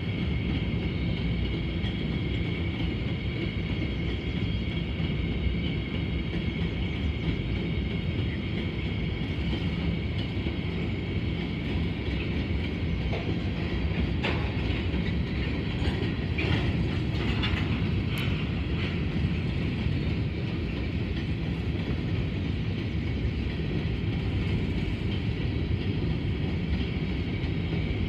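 Covered hopper cars of a freight grain train rolling past: a steady rumble of steel wheels on rail with a high, steady ring over it, and a few sharp clanks about halfway through.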